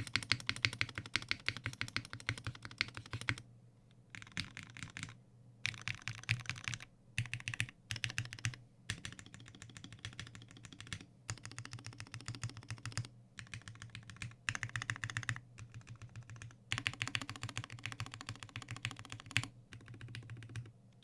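Fast typing on a Singa x TGR Unikorn R2.1 custom mechanical keyboard: lubed Cherry MX Black Hyperglide linear switches on an aluminium plate with GMK keycaps, no dampening. The keystrokes come in quick runs broken by short pauses.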